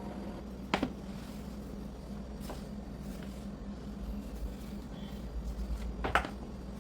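Two short sharp knocks, one about a second in and another near the end, over a steady low hum, like things being set down in a kitchen.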